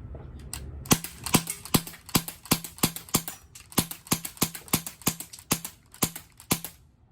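Umarex CO2 BB gun fired semi-automatically, about fifteen sharp shots at roughly two to three a second, stopping shortly before the end. It cycles without a jam, the magazine's burr having just been filed down.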